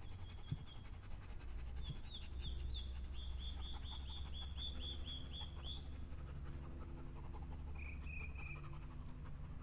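A dog panting softly while a bird calls a quick series of short falling chirps, about two or three a second, with two shorter lower phrases near the end. A low steady drone with sustained tones runs underneath.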